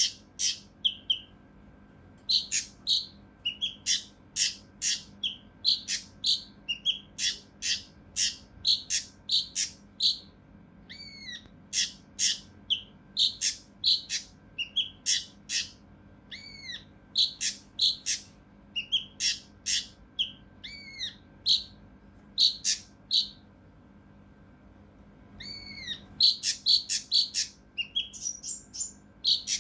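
Kinoi (cucak rante mas) songbird calling in rapid runs of short, sharp, harsh notes mixed with some arched whistled notes. There is a brief pause about three quarters of the way in before the calling picks up again. A faint steady hum lies underneath.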